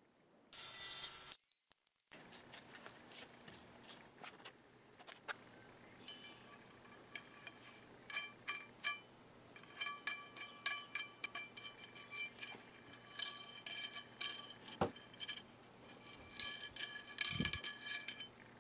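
A large steel hex nut spun by hand down a long threaded steel bolt turned from 1-inch rebar: many light metallic clicks with the rod ringing. A short, loud burst of noise comes about half a second in.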